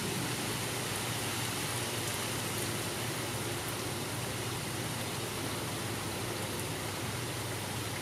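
Steady drizzle falling, an even hiss with a few faint drop ticks.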